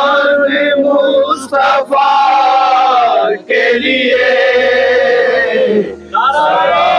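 Male voices chanting a Muharram nauha (lament for Imam Hussain) in chorus, holding long drawn-out notes, with two short breaks between phrases, about halfway through and about a second before the end.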